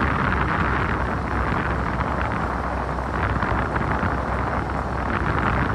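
Steady wind and road noise from a moving vehicle, with wind rushing over the microphone.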